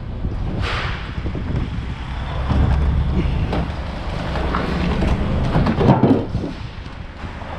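Steady low engine rumble with occasional knocks and clatter as scrap metal is handled and unloaded.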